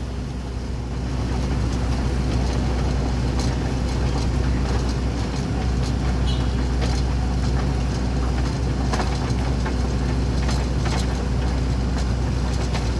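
A large engine running steadily with a low drone that picks up slightly about a second in, with scattered light knocks and clatter over it.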